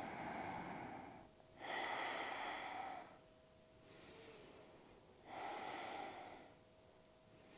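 A woman taking slow, deep, audible breaths, three long hissing breaths of a second or more each with quiet pauses between them: full yogic breathing held through a seated stretch.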